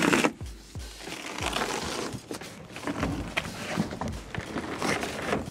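Cardboard packaging scraping and crinkling with scattered knocks as a heavy boxed home battery is handled, over background music with a beat.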